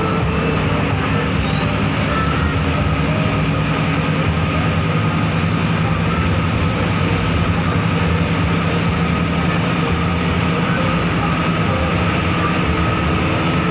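Cabin noise of a Perkasa air-conditioned bus driving on a toll road: the engine runs steadily under road and tyre noise. A steady whine dips in pitch and recovers in the first second or so.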